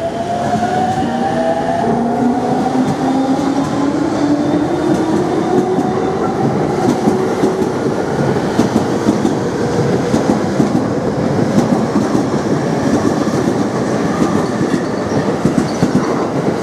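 JR East E231-500 series electric train pulling out and accelerating past: the VVVF inverter traction motors give a whine that rises in pitch over the first several seconds, then the clatter of wheels over rail joints grows as the cars speed by.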